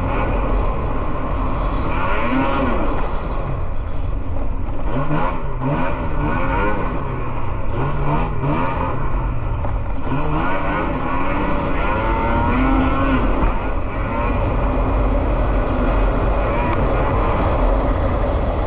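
Racing snowmobile engines running hard, their pitch rising and falling as they rev up and ease off, more than one machine heard at once.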